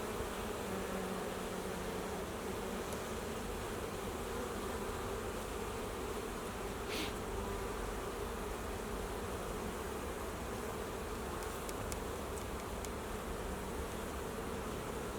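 Many honeybees buzzing steadily around a hive.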